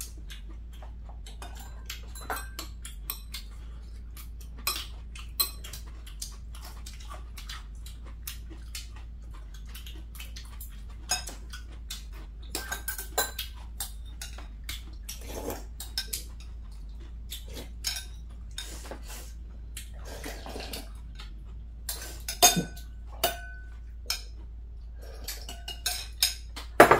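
Spoons and chopsticks clinking and scraping against ceramic bowls and plates while eating: scattered light clicks with an occasional brief ringing clink, the loudest a little over 22 seconds in.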